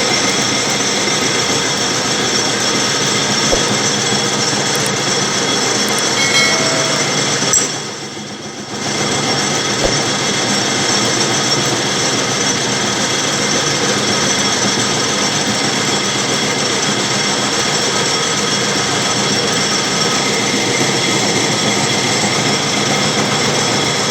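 Metal lathe running steadily during work on a water-pump shaft, a constant machine hum with steady whining tones, briefly quieter about eight seconds in.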